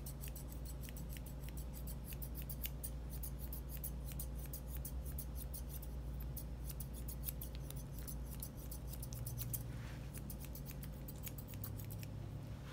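Curved grooming shears snipping a Bichon puppy's face and head fur: quick, crisp blade closures several times a second, with a short pause near the end, over a low steady hum.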